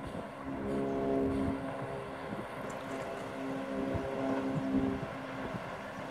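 Steady motor drone made of a few held tones over a rushing bed, swelling and easing off a few times.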